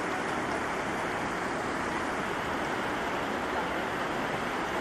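A fast-flowing river rushing steadily over rapids.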